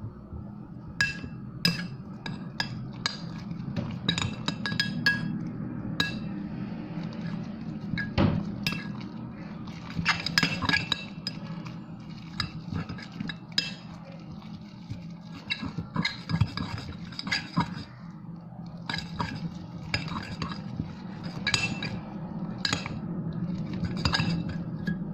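A utensil clinking irregularly against a bowl while stirring a glue-and-detergent slime mixture, each strike with a short ring, over a steady low hum.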